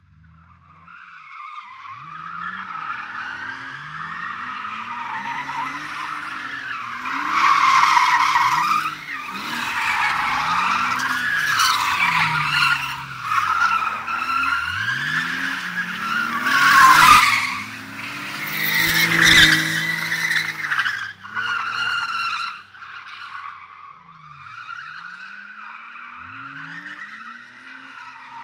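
A BMW drifting: tyres squealing in long slides while the engine revs climb and drop again and again under the throttle. The squeal is loudest in the middle and eases off near the end.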